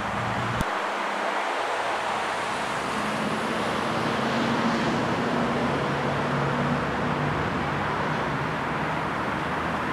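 Steady road traffic noise: an even hiss with a faint low hum under it, and a single sharp click about half a second in.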